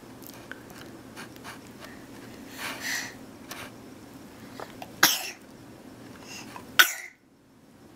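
A baby sneezing: a softer breathy sound about three seconds in, then two short, sharp sneezes about five and seven seconds in.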